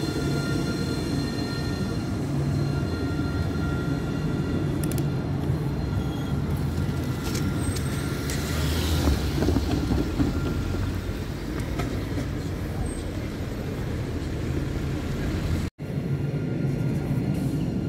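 Strasbourg tram running: a steady low rumble with faint, steady high whining tones, swelling a little about halfway through. The sound drops out for a split second near the end.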